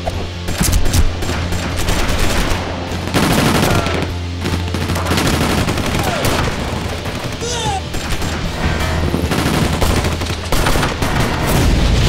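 Rapid gunfire, repeated volleys of automatic shots, laid over a steady low drone of background music.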